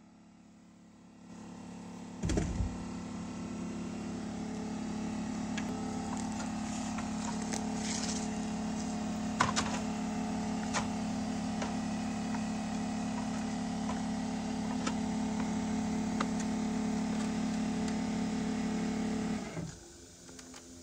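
A motor running steadily with an even hum. It starts about a second in and cuts off shortly before the end, with a knock near its start and a few lighter knocks and clicks along the way.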